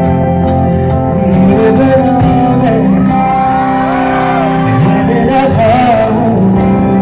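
Live band music: held keyboard and guitar chords over bass and drums, with a male voice singing, its held notes wavering in the second half.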